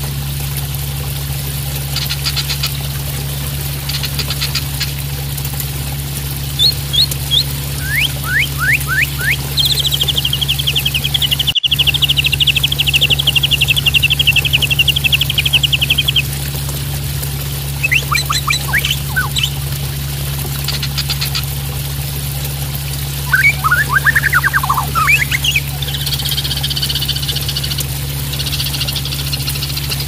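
Juvenile (spotted, 'trotol') white-rumped shama calling: short clicks and falling whistled slurs, then a long rapid chattering trill for about six seconds from a third of the way in, and a buzzy chatter near the end. Under it, water splashes steadily, with a low steady hum.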